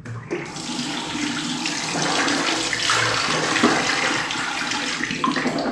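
Steady rushing, churning water in a jacuzzi tub.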